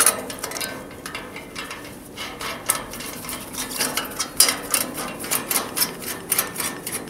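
Irregular metallic clicks and clinks of hand tools and steel parts as the bolts joining the bridging turnbuckle to its locators are tightened, several small clicks a second.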